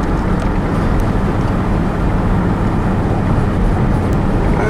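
Steady road and engine noise inside a moving truck's cab: an even low rumble with no breaks.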